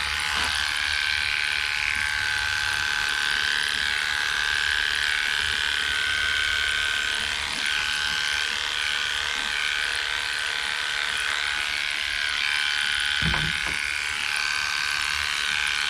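Heiniger cordless dog clipper running steadily, its blade clipping the coat. A brief low thump comes about 13 seconds in.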